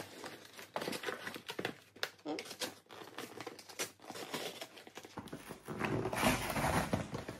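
Cardboard box being pried open by hand: scrapes, taps and crinkles of cardboard flaps and packing tape, with a small knife cutting at the tape. The rustling and tearing grows denser and louder from about five seconds in.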